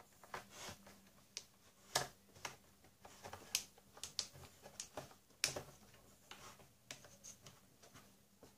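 Faint, scattered clicks and ticks as a plastic card is worked along the seam of an ASUS Transformer Book T100 keyboard dock's plastic bottom cover, the cover's snap clips popping loose one by one. The sharpest clicks come about two seconds and five and a half seconds in.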